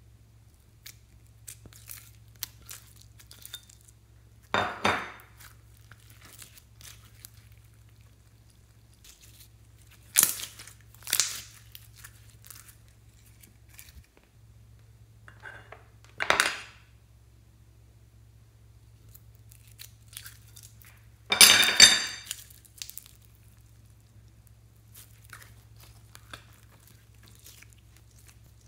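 Glitter slime being scraped out of plastic dishes into a glass dish and handled: about five separate short bursts of crinkly scraping with light clicks against dish and glass, the longest and loudest about three quarters of the way through.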